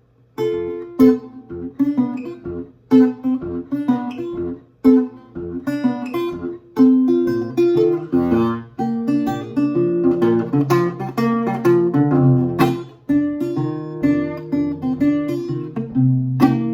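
Acoustic guitar played solo in a lively blues pattern: sharply plucked notes and chords over a moving bass line, with no singing.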